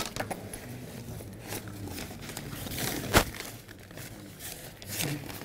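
Scattered small clicks and rustles with a sharper knock about three seconds in, over faint room noise.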